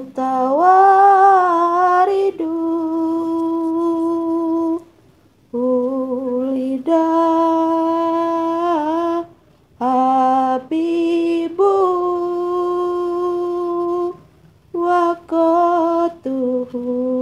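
A woman's voice singing a slow Islamic devotional chant (shalawat) in long held notes. The phrases are a few seconds long, with short pauses between them.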